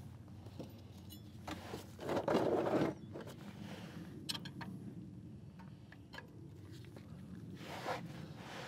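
Ratchet and socket working the transmission drain plug: a loud scrape about two seconds in, a quick run of ratchet clicks a little after four seconds, and light metal clinks of the tool against the plug.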